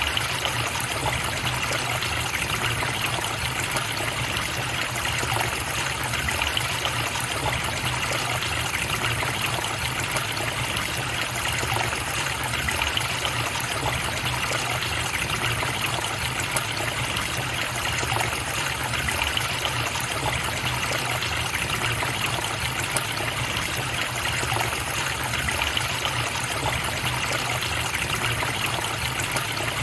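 A river running steadily: a continuous, even rush and trickle of flowing water with no breaks or changes.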